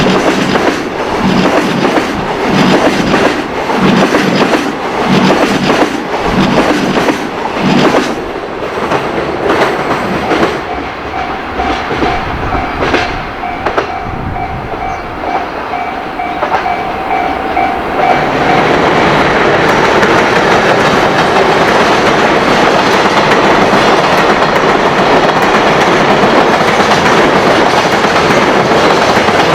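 Train wheels clicking over rail joints in a regular clickety-clack for the first several seconds. A level-crossing alarm bell dings steadily through the middle. From about two-thirds of the way in, the steady loud rumble of a train passing close drowns everything else.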